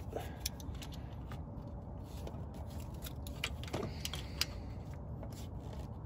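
Scattered light metallic clicks and taps of a wrench working on a VTEC oil pressure switch as it is threaded in and snugged down on the VTEC solenoid housing.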